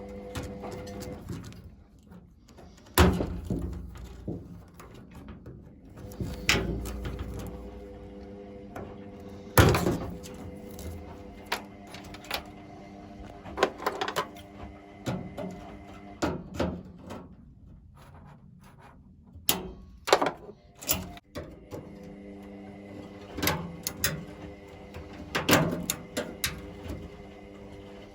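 Irregular knocks, thunks and rattles from work on a washing machine's cabinet and parts, a couple of dozen strikes spread unevenly, over a steady low hum.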